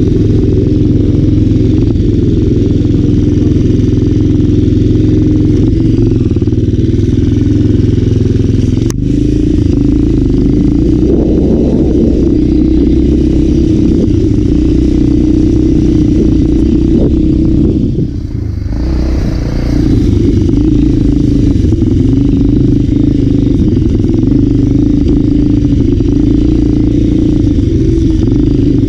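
Trail motorcycle engine running steadily while riding, with a heavy low rumble. There is a sharp click about a third of the way in, and the engine note dips briefly about two-thirds of the way through before picking up again.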